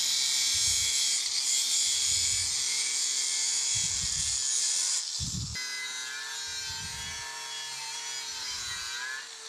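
Electric angle grinder with an abrasive disc grinding into cast iron, V-ing out a crack to prepare it for brazing. A loud, steady grinding hiss changes abruptly about five seconds in to a quieter grind in which the motor's whine stands out, wavering slightly as the disc is worked along the groove.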